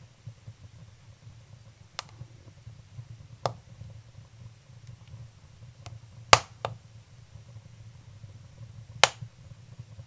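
Wood fire of split kindling and birch bark crackling in an open wood stove, with sharp, scattered pops. The loudest comes just past the middle and another strong one near the end.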